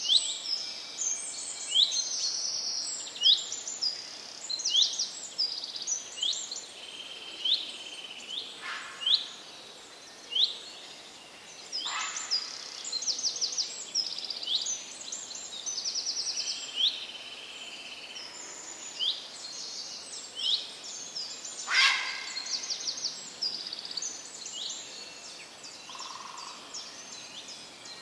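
Small songbirds chirping and twittering continuously, many short high calls and quick trills overlapping, with a few sharper, louder calls now and then.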